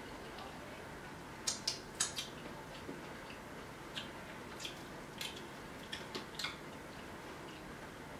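Cooked shrimp being peeled by hand: three sharp cracks and clicks of the shell in quick succession about a second and a half in, then softer scattered clicks over the next few seconds, over a faint steady hiss.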